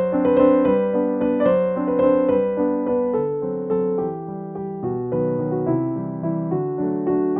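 Background piano music: a gentle melody of single notes over soft chords, each note struck and fading.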